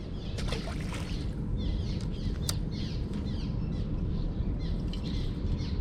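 Birds chirping in a rapid series of short, high notes over a steady low rumble.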